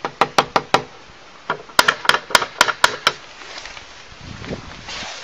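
Knocking on a front door: four quick raps, then after a short pause a second, slower run of about six knocks.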